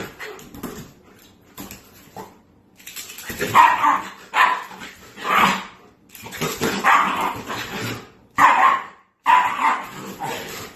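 A dog barking repeatedly in irregular bursts, with short gaps between them.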